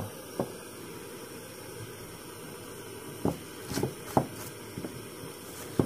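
Steady hiss, with a few light clicks and knocks as a stone dental model is handled and set on a soldering pad.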